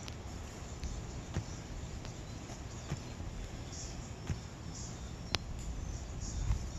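Sulcata (African spurred) tortoise digging its burrow: soft scraping in loose dirt with a few sharp clicks spread through, as claws and shell work against the soil. Faint bird chirps are heard in the background.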